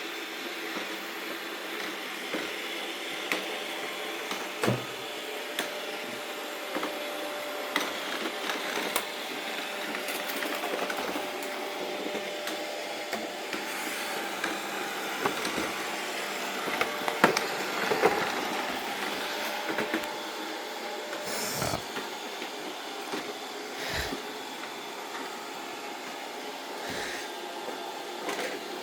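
Robot vacuum cleaner running with a steady whir, with scattered clicks and knocks, the sharpest about 5, 22 and 24 seconds in.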